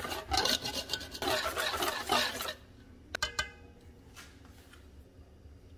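Wire whisk beating a thick batter in a stainless steel bowl, a fast run of clicks and scrapes against the metal that stops after about two and a half seconds. Soon after comes a brief ringing metallic clink.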